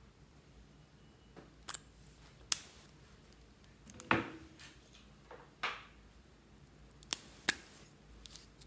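Irregular sharp clicks and knocks as lipstick cases and the glass dish of slime are handled, about eight in all, the loudest about four seconds in.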